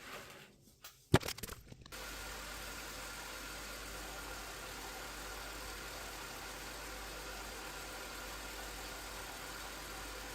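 A few clicks and a sharp knock about a second in, then from about two seconds a power grinder running steadily with a thin, constant whine.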